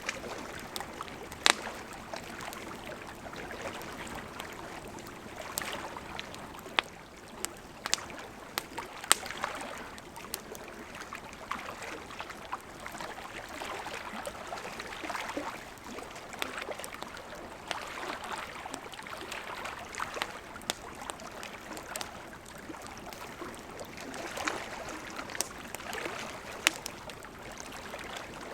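Campfire crackling with irregular sharp pops, over small lake waves lapping in gentle swells every two to three seconds.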